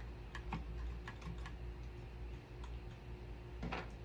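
Faint, irregular light clicks and taps as a saw blade is turned on a small circular saw's arbor, with the blade lock button held, to find the locking point. A low steady hum runs underneath.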